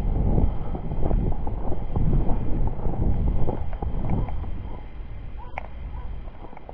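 Wind buffeting the microphone over a person's uneven walking footsteps, easing off toward the end. About five and a half seconds in there is one brief faint high-pitched sound.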